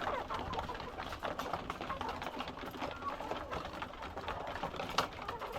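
Flock of hungry layer hens feeding: a busy run of quick pecking clicks with short soft calls, and one sharper click about five seconds in.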